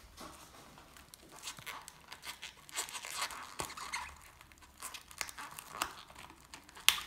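Plastic cling film stretched over a tray, crinkling and tearing under the fingers as a small hole is opened in it: a run of faint, irregular crackles with one sharper crackle near the end.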